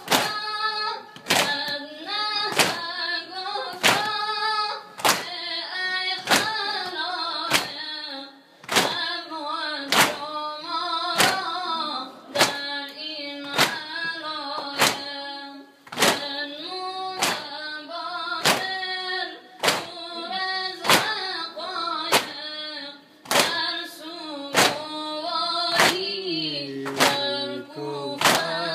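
A crowd of men chest-beating in unison in Shia mourning (sineh zani), palms slapping on chests in a steady beat of about three every two seconds. Over it, men's voices chant a noha lament together.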